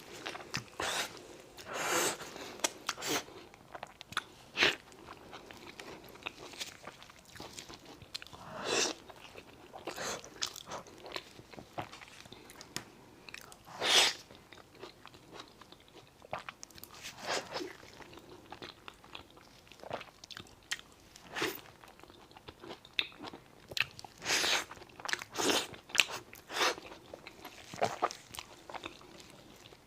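Close-miked eating: a person chewing and biting food, with irregular sharp mouth clicks and smacks and a few louder bites now and then.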